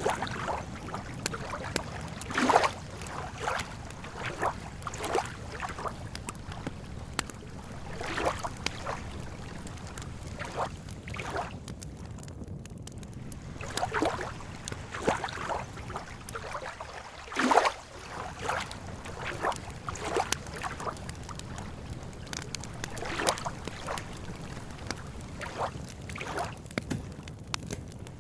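Lake water lapping and gurgling in irregular small splashes over a steady low rumble, with a couple of louder laps standing out.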